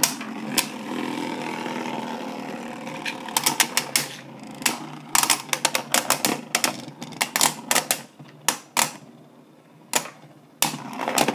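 Two Beyblade spinning tops whirring on the floor of a plastic stadium, then clashing in rapid runs of sharp plastic-and-metal clacks. The whir fades about halfway through, and a few more clacks come near the end.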